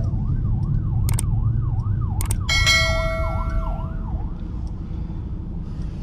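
Ambulance siren wailing ahead in traffic, a quick rising-and-falling sweep about two times a second, heard from inside a moving car over the low rumble of engine and road. About two and a half seconds in, a steady tone joins for about a second, and the siren fades away after about four seconds.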